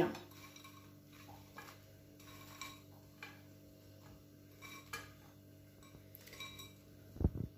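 Faint, scattered clinks of a kitchen utensil against a dish, with a louder knock near the end.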